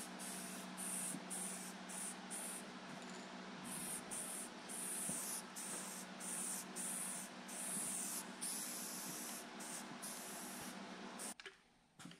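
Aerosol spray-paint can hissing in repeated short bursts with brief breaks between them as the door panel is painted, over a steady low hum. The spraying cuts off about eleven seconds in, followed by a single click.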